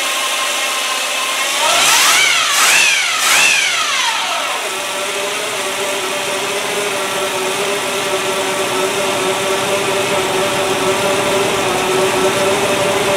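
Freshly rebuilt 350 cubic-inch small-block Chevrolet V8 on its first run, revved up twice in quick succession about two seconds in, then settling back to a steady idle. It is running smoothly.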